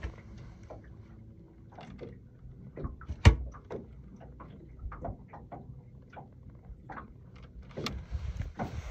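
Scattered knocks and clicks of a small fishing boat's deck and rod handling while a fish is being fought, with one sharp knock about a third of the way in. A faint steady hum fades in the first second or two, and a rush of noise comes in near the end.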